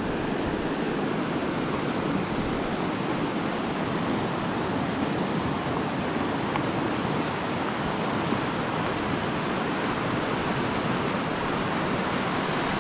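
Steady rushing of a fast, turbulent whitewater river.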